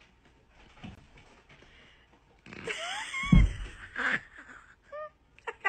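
A heavy thump about three seconds in, with short rising pitched cries around it and a short pitched call about five seconds in.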